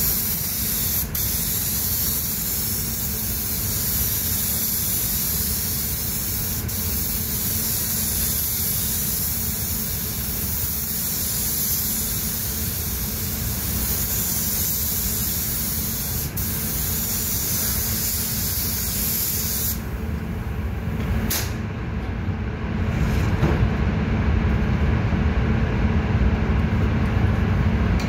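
Compressed-air automotive paint spray gun hissing steadily as pearl coat is sprayed onto a car's side, cutting off about 20 seconds in. A steady low rumble of spray-booth air runs underneath throughout and grows a little louder near the end.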